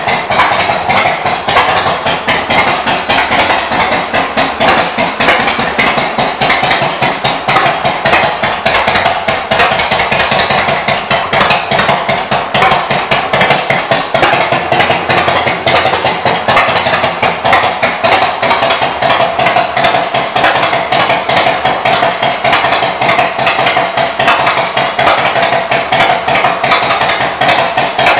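2003 Yamaha Road Star Silverado 1600's air-cooled V-twin idling steadily through aftermarket exhaust pipes, a loud, fast, even pulsing exhaust beat.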